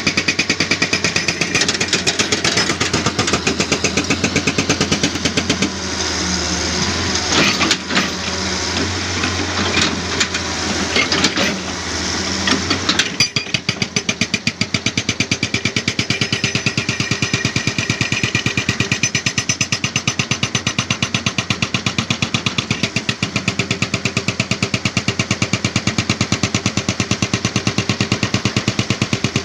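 Jackhammer pounding rock in rapid, regular blows. A steady low hum runs under it until about 13 seconds in, then drops away while the hammering goes on.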